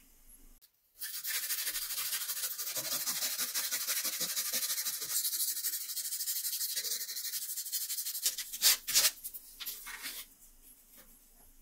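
Small steel potato-peeler blade rubbed quickly back and forth on sandpaper: a dense scratching hiss made of many short strokes, sanding the blade clean. Near the end come a few sharp clicks.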